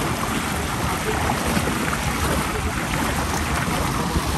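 Small motorboat under way on open water: a steady drone with wind and water rushing past, the wind buffeting the microphone.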